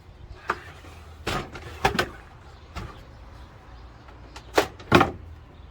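Hard knocks and clunks from an old desktop computer case being handled and its parts moved about, about seven sharp ones scattered through, the loudest two near the end.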